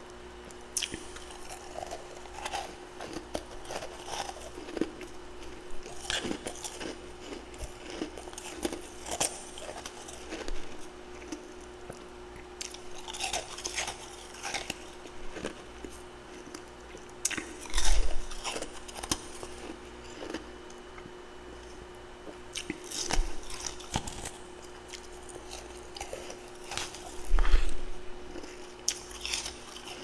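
A person biting and chewing mouthfuls of powdery freezer frost, in irregular runs of crisp crunches, loudest twice: past the middle and near the end. A faint steady hum runs underneath.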